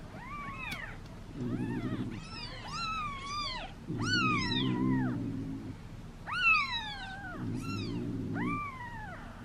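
Newborn kitten mewing over and over, about ten short high-pitched calls, each rising and then falling in pitch. A low muffled rumble comes and goes under some of the calls.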